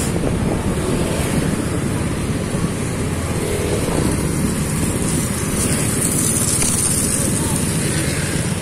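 Motorcycle on the move: its engine runs steadily under a constant rush of wind on the microphone.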